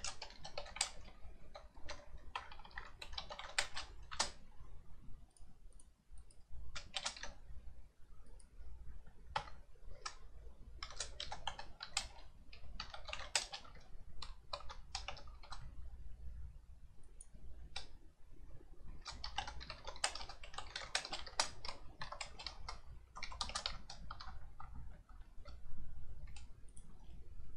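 Computer keyboard typing in short bursts of rapid keystrokes with pauses between, and a few single clicks.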